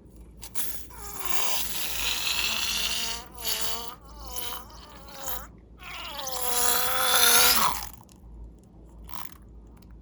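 A rubber balloon squealing, in a series of wavering, high squeals. There is one long squeal, then several short ones, then the loudest and longest squeal, which cuts off near the end, followed by a few faint clicks.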